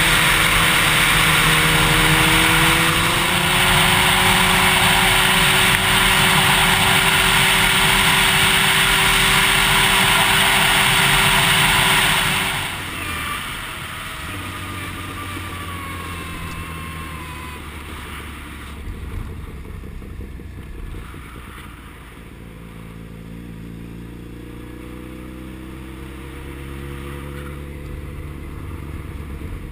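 Yamaha FZ1 motorcycle's inline-four engine under way, heard with a loud rush of wind. The engine note climbs in the first few seconds, then holds. About twelve seconds in the wind rush and overall loudness drop sharply. The engine note falls lower, then rises again near the end as the bike pulls away.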